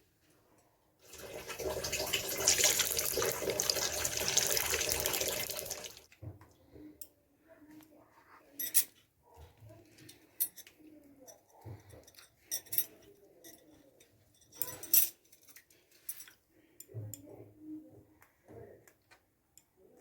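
Water running from a tap into a vessel for about five seconds, then stops; after it come scattered small splashes and light clinks of handling in water.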